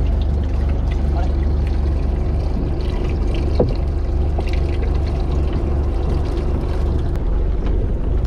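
Boat engine running steadily, with water pouring and trickling in a live-bait basin as a sardine is taken out by hand. A brief sharp click about three and a half seconds in.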